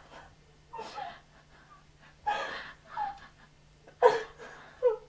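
A woman crying: short sobbing breaths and gasping whimpers, about five in a few seconds, over a faint steady low hum.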